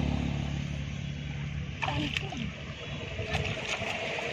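Shallow muddy water sloshing and splashing as hands grope through it for fish, over a low engine-like hum that fades in the first second.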